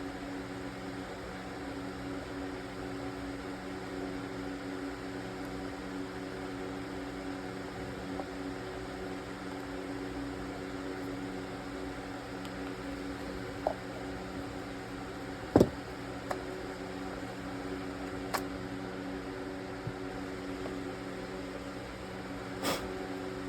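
Steady mechanical hum, like a fan running, with a few sharp clicks and knocks of parts being handled, the loudest about two-thirds of the way through.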